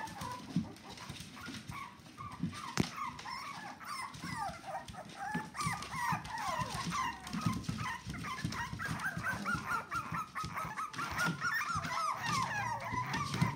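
Young puppies whimpering and squealing: many short, high, rising-and-falling cries that overlap, getting denser over the second half. Near the end an adult dog growls low at the puppies.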